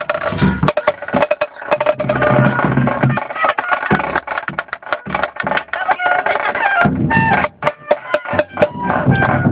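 Pearl marching snare drums struck with drumsticks in irregular, uneven hits, over background music.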